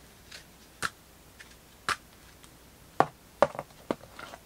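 Trading cards being handled: a string of short, sharp clicks and snaps of card stock, sparse at first, then closer together and louder in the last second and a half.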